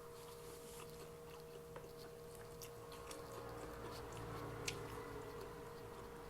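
Faint chewing and mouth sounds of people eating, with scattered small clicks and one sharper click near the end, over a steady faint hum.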